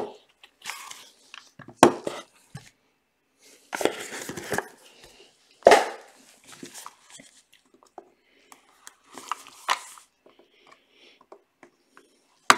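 Gloved hands opening a cardboard box with a foam insert and handling a plastic card case: rustling and scraping with a few sharp clicks, the loudest about two seconds and six seconds in.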